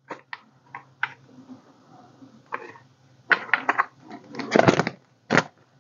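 Cash bills and budget envelopes being handled: a string of short paper rustles and clicks, busiest in the second half.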